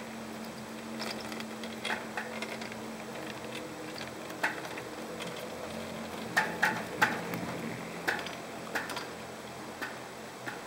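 Irregular light clicks and ticks while riding a chairlift, a dozen or so spread unevenly, loudest in a cluster a little past the middle, over a faint steady hum that fades out early on.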